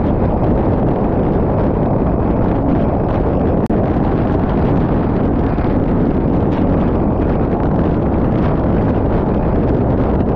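Wind buffeting the microphone of a camera mounted on a fire engine's front bumper at highway speed, mixed with tyre and spray noise off the wet road: a loud, steady rush. About a third of the way in the sound cuts out for a moment.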